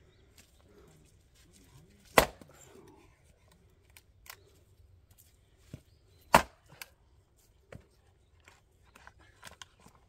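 Axe splitting firewood: two loud, sharp strikes of the axe into a log about four seconds apart, with a few fainter knocks between and after them.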